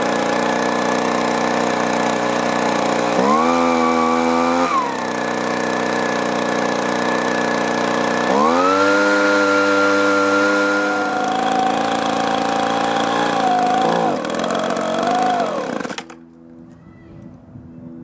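Echo leaf blower's small two-stroke engine idling, revved up twice to a high steady pitch and back, then running unevenly with a wavering pitch before it cuts out suddenly near the end. It stalls after running only a short while, which the owner suspects is a clogged or gummed-up carburetor.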